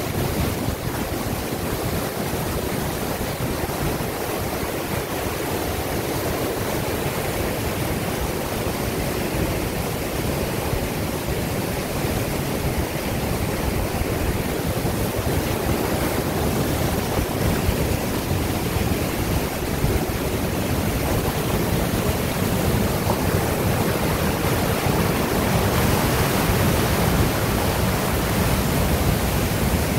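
Mountain stream pouring through a narrow rock chute as a small waterfall: a steady rush of churning white water, a little louder in the last few seconds.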